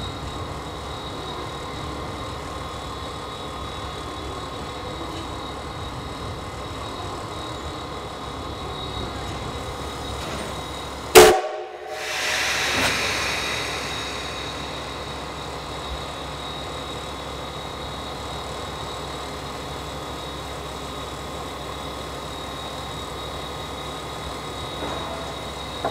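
A single short, very loud blast of a steam locomotive whistle about 11 seconds in, followed by a rush of noise that fades over a few seconds, over a steady background noise.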